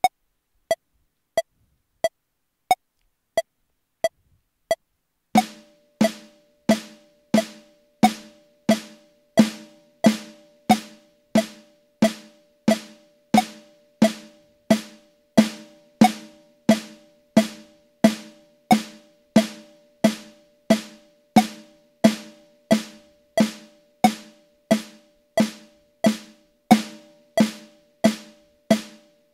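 Metronome clicking at 90 beats per minute: a few bare clicks as a count-in, then even single snare strokes on an electronic drum kit's pad, one on every click, played as a wrist stroke exercise.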